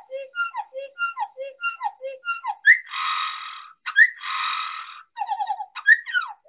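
Song sparrow song played back slowed down. A run of short repeated notes, about two a second, leads into two long buzzy trills, each opened by a sharp high note, then quicker trilled notes near the end.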